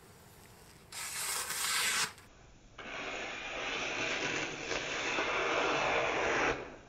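A knife blade stropped on a leather strop with a short scraping stroke, then a fast-forwarded run of the freshly sharpened knife slicing through sheets of paper, a continuous scratchy rasping for about four seconds.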